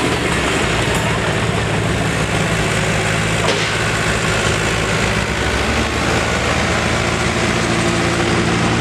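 John Deere tractor's diesel engine running steadily under load as it pulls a weight-transfer sled down a dirt pulling track.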